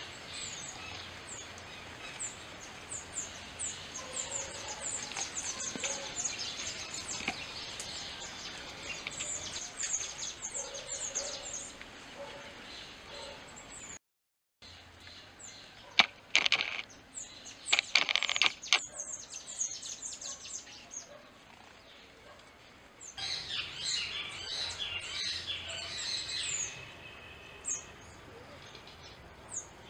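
Burnished-buff tanager (Tangara cayana) calling and singing in a soft series of short, thin, high notes, with a brief break about halfway. A few loud sharp sounds come soon after the break, followed later by a denser run of notes.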